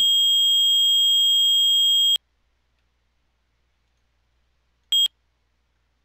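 Simulated SHP Pro releasing fire alarm control panel's trouble sounder: a steady high-pitched beep tone signalling an open circuit, a cable pulled from the manual release circuit. It cuts off suddenly about two seconds in, and one short beep of the same tone comes about five seconds in.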